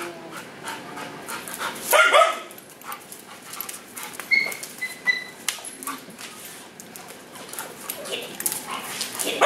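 An excited dog whining and panting in play, with one louder bark about two seconds in and a thin high whine in short pieces about four to five seconds in.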